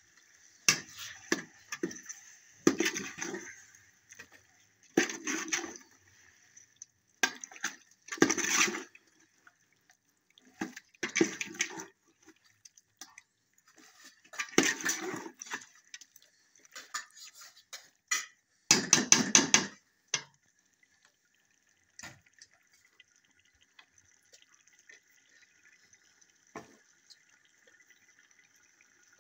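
Chicken curry being stirred in a cooking pot with a metal ladle: wet, sizzling scrapes in irregular bursts, giving way after about twenty seconds to a faint steady sizzle.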